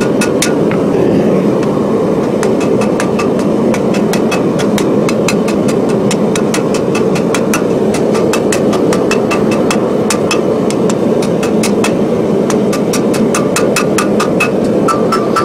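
Hand hammer striking a red-hot steel bar on the anvil in quick light blows, about three a second, rounding a ball on the bar's end. The blows pause briefly twice. A loud steady rushing noise runs underneath throughout.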